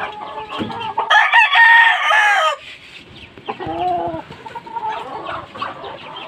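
A gamecock (fighting rooster) crowing once, loud and held for about a second and a half starting about a second in, with shorter clucking calls from fowl around it.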